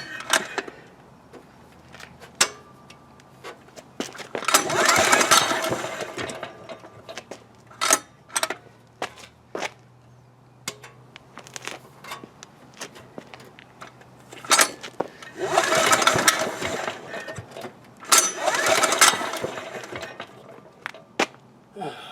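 Recoil starter of an ETQ DG7250LE diesel generator pulled three times. Each pull turns the engine over for a second or two without it starting. Sharp clicks and knocks come between the pulls.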